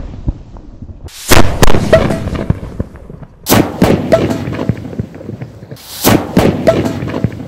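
Pressure cooker packed with matchsticks bursting: a loud blast followed by a few sharp cracks and a fading rumble, heard three times, about a second, three and a half and six seconds in.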